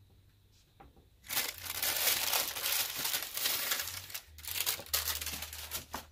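Sheet of baking paper crinkling and rustling as it is pulled out from under a freshly baked loaf and handled. It starts about a second in and has a brief pause near four seconds.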